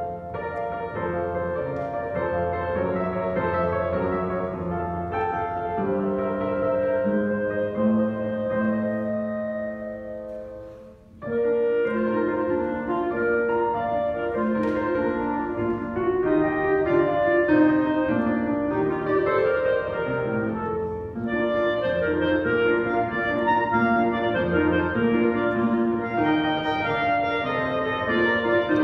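Clarinet and upright piano playing a classical piece together, with sustained clarinet melody over piano accompaniment. The music briefly dies down about ten seconds in, then picks up again.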